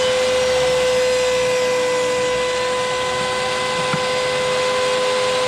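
Table saw running with a steady whine, ripping a hickory board to width.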